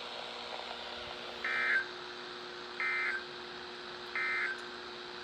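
NOAA Weather Radio SAME end-of-message data bursts: three short, identical digital bleeps about 1.4 s apart. They mark the end of the Required Weekly Test message. A faint steady hum from the radio runs underneath.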